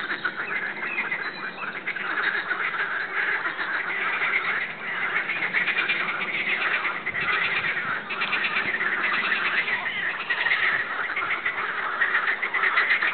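A dense, continuous chorus of pond animals: many frogs croaking in rapid rattling calls, overlapping with ducks quacking.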